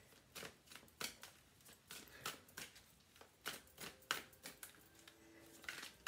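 Tarot cards being handled: soft, irregular clicks and flicks of cards, about one or two a second.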